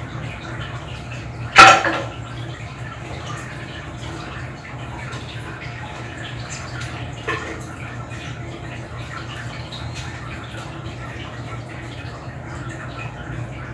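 Steady low hum under a background hiss, broken by one loud sudden knock about two seconds in and a softer one past the middle.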